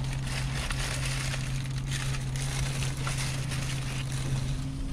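Paper sandwich wrappers rustling and crinkling as they are handled and unfolded, in irregular short crackles, over a steady low hum from the car.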